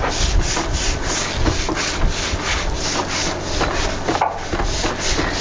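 Long-handled deck brush scrubbing a wet, soapy ship's deck in quick repeated back-and-forth strokes, about four or five a second.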